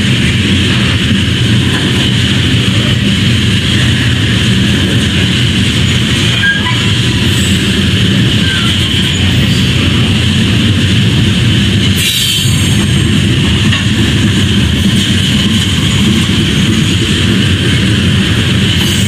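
Freight train of loaded coal hopper cars rolling steadily past, a continuous rumble of wheels on rail, with one sharp click about twelve seconds in.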